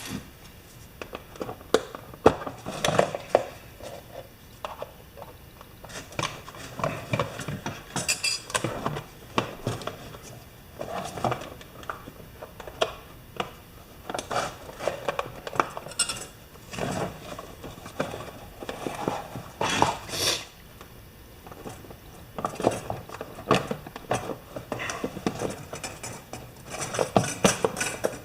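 Small metal parts and hand tools clinking, tapping and rattling against each other and the work surface in an irregular string of light knocks, as pieces of a broken sump cover are handled and fitted for riveting.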